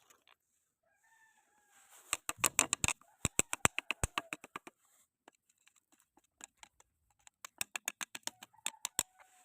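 Two quick runs of sharp clicks and taps, about six to eight a second, from hand-tool work on a water heater during servicing.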